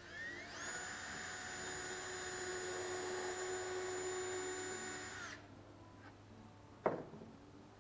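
Cordless drill spinning up with a rising whine, running steadily at full speed for about five seconds, then stopping abruptly, as it bores into or drives into plywood. A single sharp click follows about a second and a half later.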